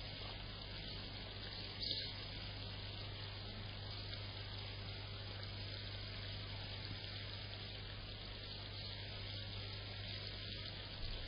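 Water from a koi pond's return outlet splashing steadily onto the pond surface, over a constant low hum.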